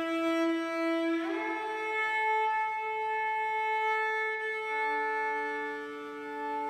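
Slow background music of long held, string-like notes. The pitch steps up with a short glide about a second in, and a lower note joins a little past the middle.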